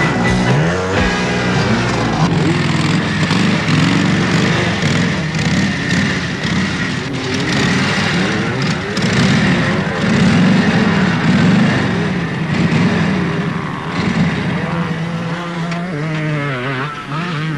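Large motorcycle engine running, its pitch rising and falling, then holding steadier near the end, with rock music playing underneath.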